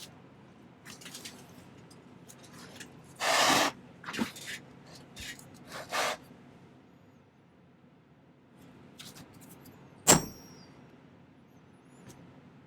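A hammer strikes a steel texture stamp on sterling silver sheet once, about ten seconds in: a sharp hit with a short metallic ring. Before it come quieter knocks and handling sounds of the stamp and metal on the bench, with one louder rustling scrape about three seconds in.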